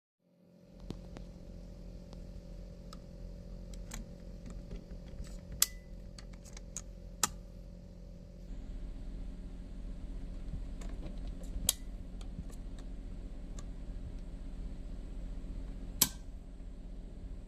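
A homemade 6 mm BB airsoft toy gun being handled, with small clicks throughout and four sharp cracks spaced a few seconds apart, likely shots or the action snapping. A steady hum runs underneath and grows a little brighter about halfway through.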